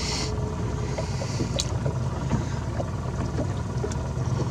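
Suzuki 9.9 HP kicker outboard running steadily at low trolling speed, set back to idle by the iTroll speed controller.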